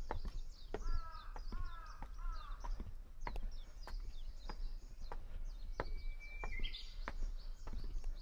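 Birdsong: a crow caws three times about a second in, over steady high chirping from small birds. Near the end a Japanese bush warbler (uguisu) holds a long steady whistle and then breaks into a quick higher phrase. Sharp ticks come about twice a second throughout.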